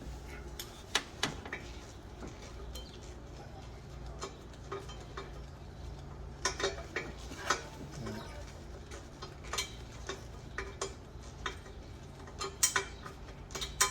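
Hand tools and metal parts clinking and clicking at irregular moments, with a steady low hum underneath.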